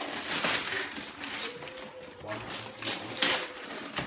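Rustling and crinkling of gift packaging being handled as a present is unpacked, in irregular bursts with a louder crinkle about three seconds in.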